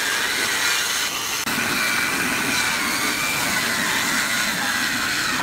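Handheld corded circular saw running under load as its blade cuts through a wooden panel, a steady whining rasp that drops out for a moment about a second and a half in.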